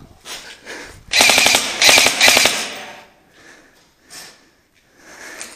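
Airsoft rifle firing rapid bursts of shots: a fast string of sharp clicks about a second in, lasting about a second and a half.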